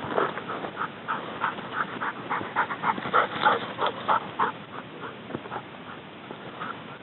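A dog yelping in a rapid series of short barks, about four a second, tailing off about four and a half seconds in.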